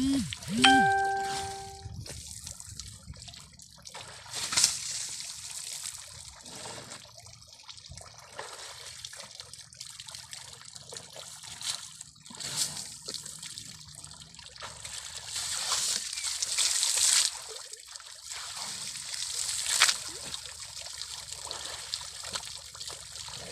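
Water trickling and splashing in uneven bursts, with a short whistle-like call about a second in.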